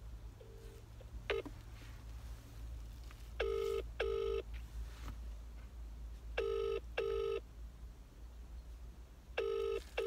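British-style ringback tone of an outgoing phone call, heard through the phone's loudspeaker: three double rings, a pair of short tones about every three seconds, as the call rings at the other end without being answered.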